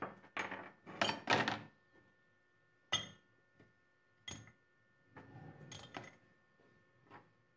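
Rusty antique meat grinder parts (the worm, collar ring and perforated cutting plate) being set down one by one into a plastic tub, knocking and clinking against the plastic and against each other. A string of separate knocks, the loudest about a second in.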